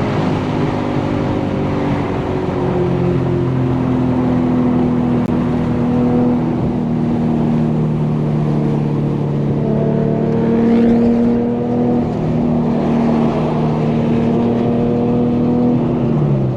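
Infiniti G37's 3.7-litre V6 running through an ISR single-exit GT exhaust while driving, its pitch holding or rising slowly under light throttle, then dropping near the end.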